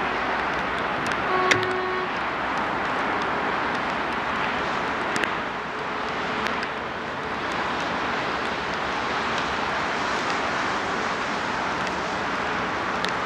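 A TEP70 diesel locomotive's horn gives one short toot about a second and a half in. The locomotive is still far off, over a steady rushing noise.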